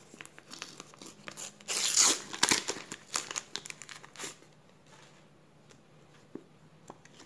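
Crinkling and rustling of Panini sticker packs and stickers being handled, loudest about two seconds in, dying down to a few light clicks after about four seconds.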